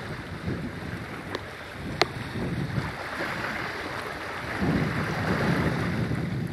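Wind buffeting the microphone over ocean surf washing in, with a sharp click about two seconds in.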